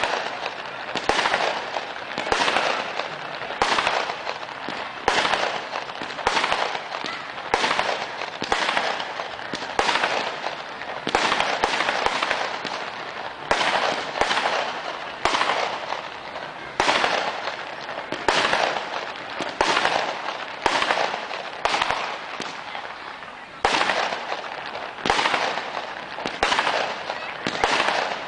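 Fireworks show fired at low density: shells burst one after another, about one a second, each a sharp bang followed by a fading crackle.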